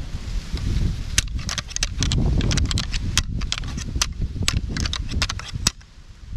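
A pair of deer antlers being rattled together, a fast, irregular run of clacks and grinding ticks imitating two whitetail bucks sparring, which is done to call in a buck. It starts about a second in and stops suddenly near the end, over a low rumble of wind on the microphone.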